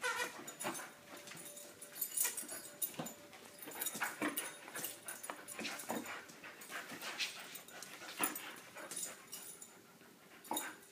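A husky's play noises, in irregular short bursts, as it tugs at a chew toy; they stop shortly before the end.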